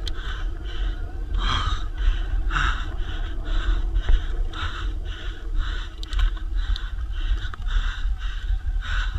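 E-bike enduro rider breathing hard, a rhythmic panting of about two breaths a second, over a steady low rumble.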